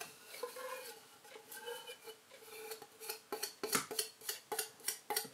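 A metal spoon clicking and scraping against a condensed-milk tin lid as the sticky milk is scooped off it. The light clicks come sparsely at first, then several a second over the second half.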